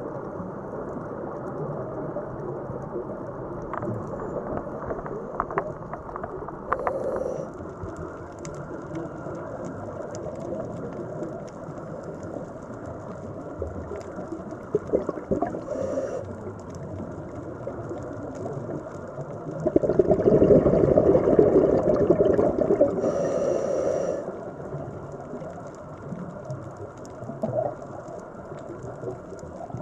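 Underwater recording on a scuba dive: a steady muffled water rush with scattered small clicks. About twenty seconds in comes a loud bubbling rush lasting about four seconds: a diver exhaling through a scuba regulator.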